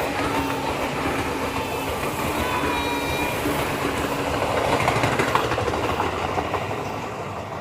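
Train running past on the rails with a clattering rumble, swelling to its loudest about five seconds in and then fading as it moves away.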